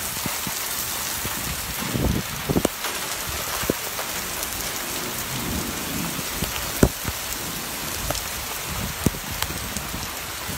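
Very heavy rain pouring down steadily. A few sharp knocks of drips or splashes stand out, the loudest about seven seconds in.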